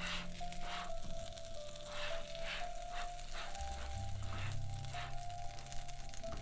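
Egg toast frying in a pan, a steady sizzle with bursts of crackle about every half second. Background music with a held melody note and a bass line plays over it.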